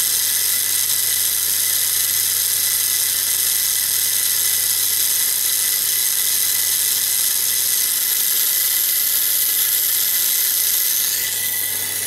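Small low-voltage electric motor salvaged from a computer drive, run by a homemade Peltier thermoelectric generator, spinning its wheels at high speed with a steady high-pitched whine. It fades a little near the end.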